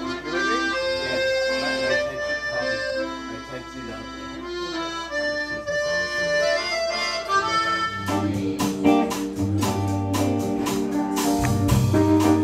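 Music: a melody of held notes, joined about eight seconds in by a steady drum beat and bass.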